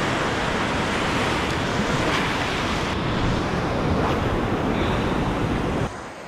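Ocean surf washing on the beach, with wind on the microphone. It is a steady rushing noise that cuts off suddenly near the end.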